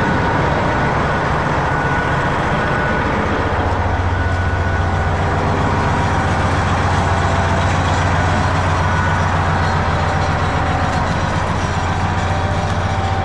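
A heavy-equipment engine idling steadily, its low hum growing stronger about three and a half seconds in.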